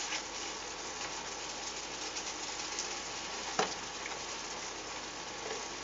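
Asparagus sautéing in garlic sauce, sizzling steadily in the pan, with one sharp knock about three and a half seconds in.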